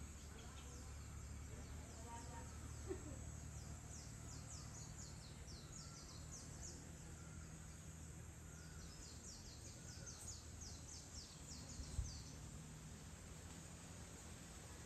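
Faint outdoor evening ambience over a low steady hum, with two runs of quick, high-pitched chirping calls, the second starting about halfway through. A brief soft bump near the end.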